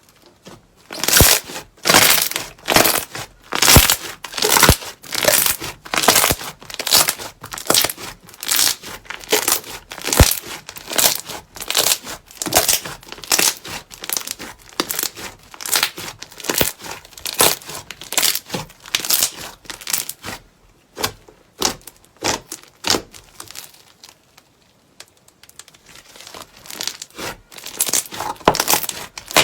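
Crunchy slime being squeezed and pressed by hand, giving a steady run of crisp crackling crunches about one to two a second, with a short lull near the end.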